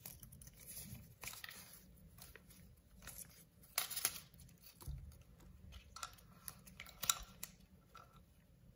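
Gloved hands handling the paper leaflet and small plastic parts of a Kinder Surprise toy: papery crinkling and rustling with small clicks, the sharpest crackles a little before four seconds in and again about seven seconds in.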